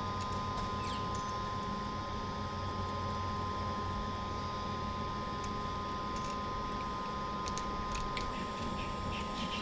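Steady low hum with a constant thin high tone, and a few faint clicks and rattles of battery cable leads being handled and fitted at a distribution busbar, mostly in the last couple of seconds.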